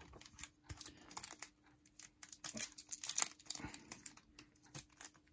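Foil wrapper of a Topps Chrome trading-card pack crinkling as it is pulled from the box and worked open by hand, in short irregular crackles.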